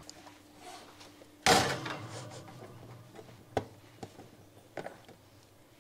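A loud clunk about a second and a half in, then two sharp clicks further apart: a plastic microwave rice cooker being handled and its lid worked at.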